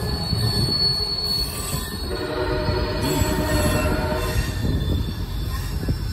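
MARC commuter train's passenger cars rolling past on the rails with steady rumbling, wheels squealing in thin high tones early on and lower steady tones in the middle.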